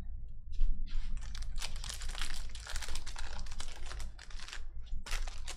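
Donruss Optic basketball hobby pack wrapper crinkling and tearing as it is ripped open by hand: a dense, rapid crackle for about four seconds, ending in a few sharp clicks.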